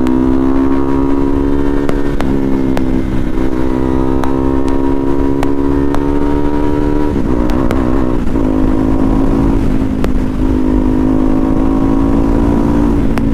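Motorcycle engine accelerating hard through the gears, its note climbing steadily and dropping at upshifts about two seconds in and again around seven seconds, over wind noise.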